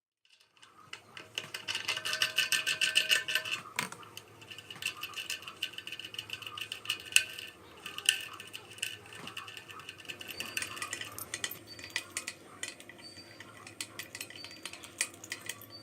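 Metal tools and hardware clinking and scraping in quick, irregular clicks with a ringing edge, broken by a few sharper knocks, as work is done on a toilet tank's fittings.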